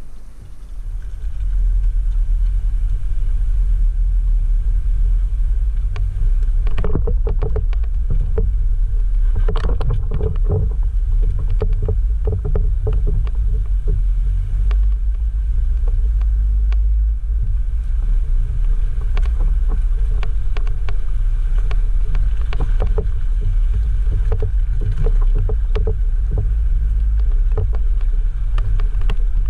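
Jeep JL Rubicon on 37-inch tires driving a rough dirt trail: a steady low rumble with repeated clattering knocks and rattles from about seven seconds in.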